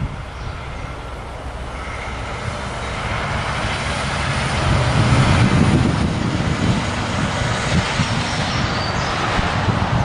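A passing road vehicle: a rush of tyre and engine noise swells to a peak about halfway through and fades slowly, with wind buffeting the microphone.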